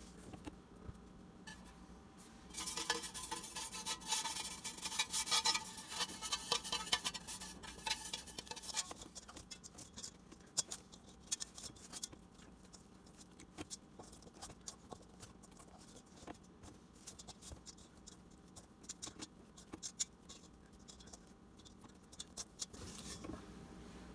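Spatula scraping sticky spelt dough off a stainless steel mixing bowl, busiest in the first third, then scattered clicks and rubbing as hands lift and handle the dough.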